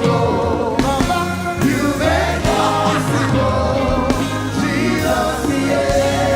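Gospel worship music: voices singing over a band with sustained keyboard chords and a steady bass line.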